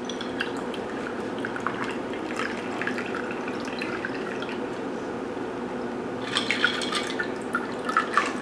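A shaken martini poured from a metal cocktail shaker into a martini glass: a thin stream of liquid trickling and dripping into the glass, with clusters of clinks about six seconds in and again near the end.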